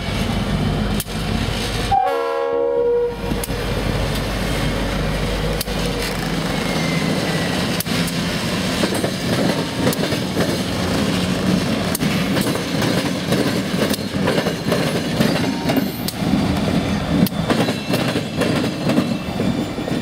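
A diesel locomotive horn sounds one chord about two seconds in, lasting about a second. Then Conrail diesel locomotives running light rumble past, engines running and wheels clicking over the rails.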